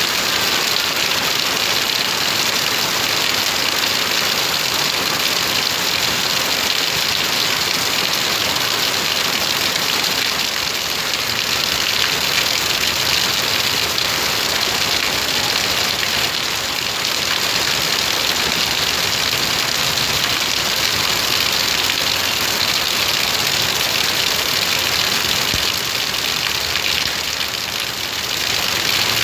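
Heavy rain pouring down steadily, a loud, even hiss.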